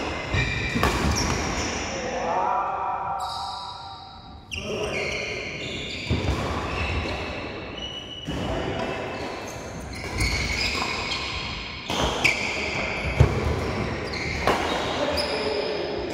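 Badminton rally: sharp cracks of rackets striking the shuttlecock every second or two, the loudest about thirteen seconds in, with short high squeaks of shoes on the court floor between hits.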